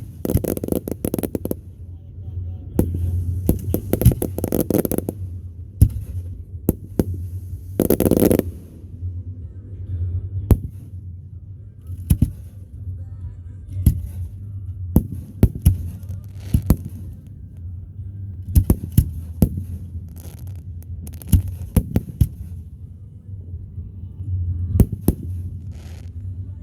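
Fireworks display: repeated sharp bangs, some single and some in quick clusters, with a longer crackling burst about eight seconds in, over a steady low rumble.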